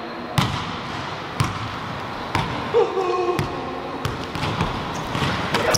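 Basketballs bouncing on a hardwood gym floor: separate single bounces roughly a second apart.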